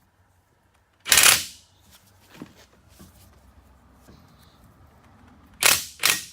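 Hand-tool handling on a ball-joint and U-joint press set on a drive shaft's universal joint: a loud scraping rattle about a second in, faint scraping after it, and two short rattles near the end.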